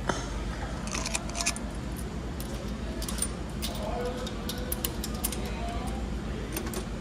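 Coins clinking and the metal coin mechanism and crank of a coin-operated toy capsule vending machine being worked by hand, a run of irregular metallic clicks and rattles.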